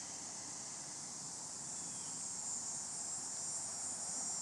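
Steady chorus of insects, a continuous high-pitched shrilling that does not let up.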